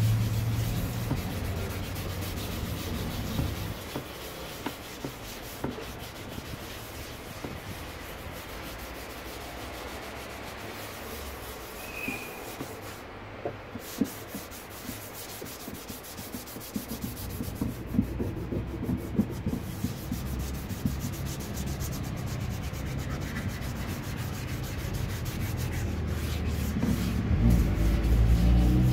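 Sandpaper rubbed back and forth by hand over the wet, scratched plastic of a motorcycle top case: a steady scratchy rubbing with small scrapes. A low rumble sits underneath at the start and again through the second half.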